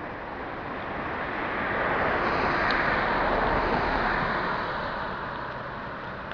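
A car passing close by: its tyre and engine noise swells over about two seconds, peaks in the middle, then fades as it drives away.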